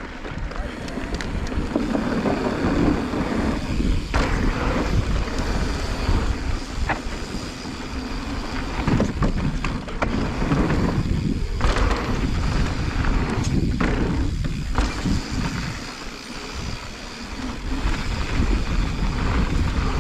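Mountain bike riding down a dry, dusty dirt trail at speed: wind rushing over the microphone, tyres rolling on dirt and the bike rattling over bumps, with scattered sharp knocks.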